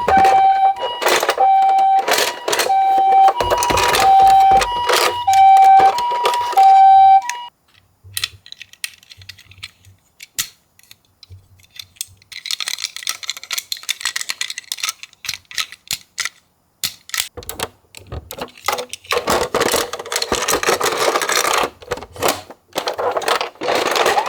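Two-tone Japanese ambulance siren, a high and a low tone alternating about once a second, stops about seven seconds in. Over it and after it, many die-cast toy ambulances clatter, click and knock as they roll down a slope and tumble in a box, with a thick burst of clatter near the end.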